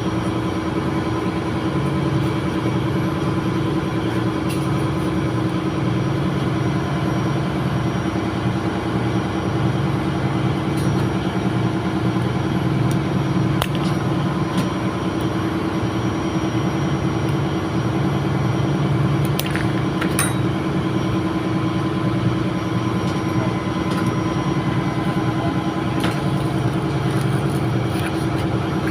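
Steady drone of running engine-room machinery on a ship, a constant hum over a pulsing low rumble like diesel engines running, with a few faint light clicks about halfway through.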